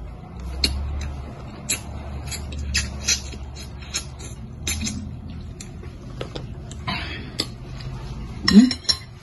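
Metal spoon and fork clinking and scraping against a ceramic soup bowl while eating soup, a sharp clink every second or so, with sips and chewing between them. A louder cluster of clinks comes near the end.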